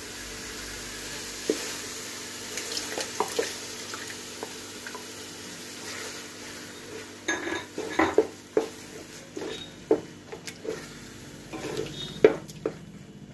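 A spoon stirring yogurt into a sizzling onion-tomato masala in a metal pot. There is a steady sizzle at first, then a run of scrapes and knocks of the spoon against the pot from about seven seconds in.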